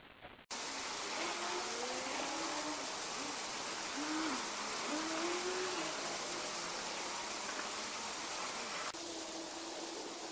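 Fountain water splashing and cascading in a steady rush, with a few short, low, rising-and-falling calls over it.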